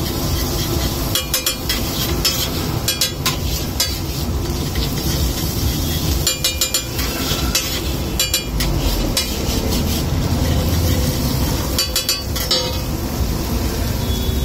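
Long flat metal spatula scraping, chopping and clanking against a large flat metal griddle in short bursts, with food frying in oil underneath.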